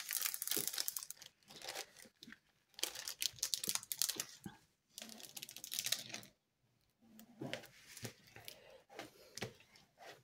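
Clear plastic cover film on a diamond painting canvas crinkling and rustling in irregular bursts as it is lifted by hand and then smoothed down with a plastic scraper.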